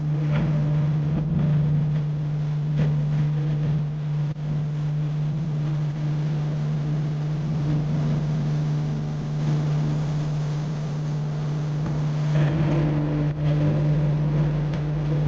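Car driving, heard from inside the cabin: a steady road and engine drone with a constant low hum.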